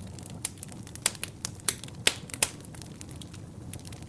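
Fireplace wood fire crackling: irregular sharp pops and snaps, several a second, over a low steady rumble of flame.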